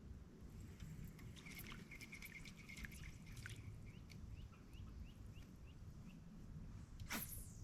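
Birds calling in swamp woods: a short trill, then a run of quick, evenly spaced chirps, over a low rumble. A quick swish sounds about seven seconds in.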